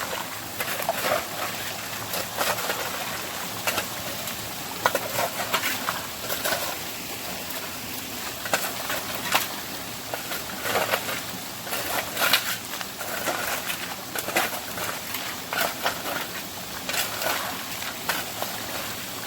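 Irregular crunches and knocks, roughly one or two a second, over a steady background hiss.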